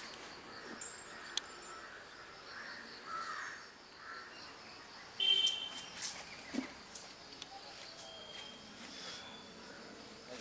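Outdoor ambience of a steady high insect drone, with scattered bird calls and faint clicks. A bird gives one louder, sharp call about five seconds in.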